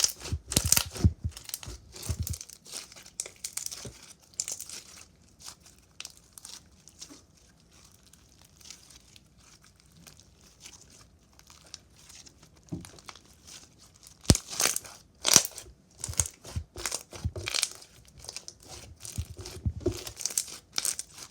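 Slime being squished and stretched by hand, giving runs of small sticky clicks and crackles. Busy at the start and again in the last third, sparse in the middle, with one sharp snap about two-thirds of the way in.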